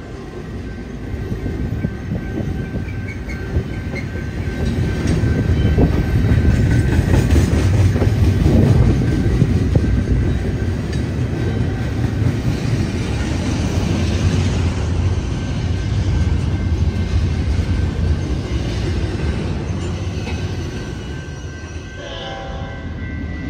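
Diesel freight trains passing close by: a heavy, steady low engine rumble with wheel and rail noise, swelling loudest in the middle. A short horn note sounds near the end.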